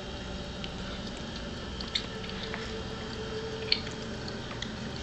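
A toddler chewing food with small wet mouth clicks and smacks, two sharper ones about two seconds and three and a half seconds in, over a steady background hiss.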